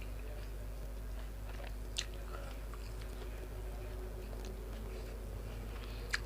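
A person chewing grilled pork and sticky rice, with small wet mouth clicks. Two sharper clicks stand out, one about two seconds in and one near the end, over a steady low hum.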